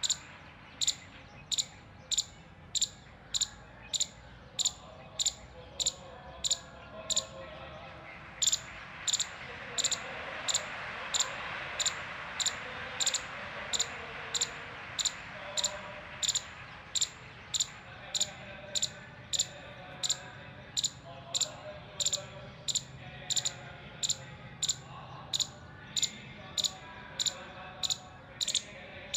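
Indian palm squirrel giving its alarm call: a high-pitched chip repeated steadily, about one and a half times a second, with a short break about eight seconds in.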